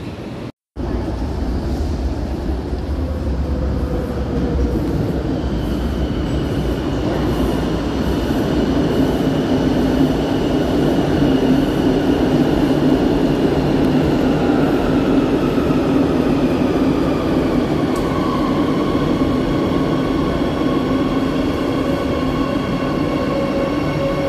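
Madrid Metro train running, a steady loud rumble overlaid by several high whining tones that slowly drop in pitch. A brief dropout breaks the sound about half a second in.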